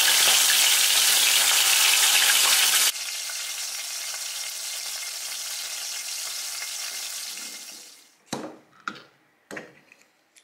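Sardines deep-frying in hot oil: a loud, steady sizzle that drops to a quieter sizzle about three seconds in and fades away near eight seconds. Three short knocks follow near the end.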